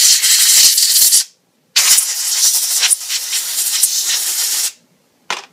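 Can of compressed air (computer duster) spraying through its straw in two long hissing blasts, the second about three seconds long, blowing water off wet plastic parts. A short knock near the end.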